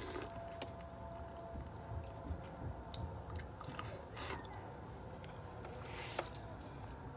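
Chewing and biting corn on the cob: faint wet mouth sounds and small clicks, with a sharper bite about four seconds in.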